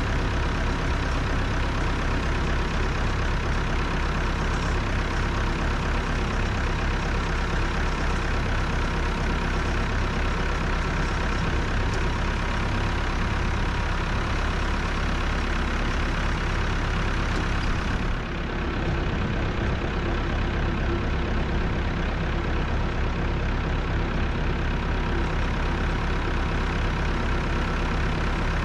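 Allis-Chalmers 170 tractor engine running steadily while the John Deere 148 front loader is cycled to test its resealed lift cylinders. The level dips briefly about two-thirds of the way through.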